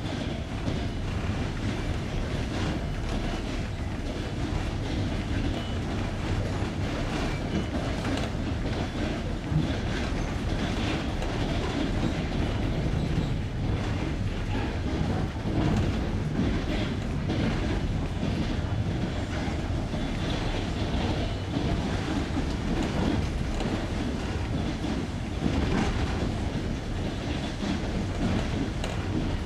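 Passenger train's wheels clattering over jointed rail joints: a steady running rumble broken by repeated knocks, heard from aboard the moving train.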